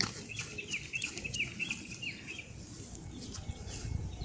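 Bird chirping: a quick run of short high chirps over the first two seconds or so, then fainter calls, with a few light knocks.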